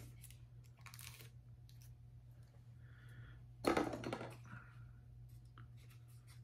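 Plastic packaging crinkling and rustling in the hands as a small figure piece is unwrapped, in short spells, with the loudest crackle about four seconds in.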